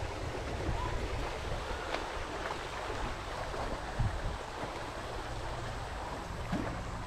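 Wind rumbling on the microphone over a steady outdoor hiss, with a few faint short knocks.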